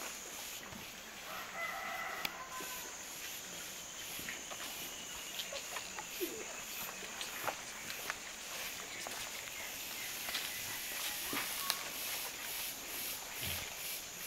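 A rooster crows once about a second in. A steady high-pitched hum runs underneath, with scattered light clicks and rustles from a woolly monkey and a peccary scuffling in leaf litter against a wooden rack.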